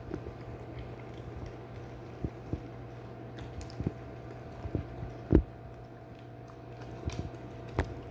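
A dog crunching and chewing pieces of a dog-treat gingerbread cookie off the floor: irregular sharp crunches and clicks over a steady low hum, the loudest about five and a half seconds in and again near the end.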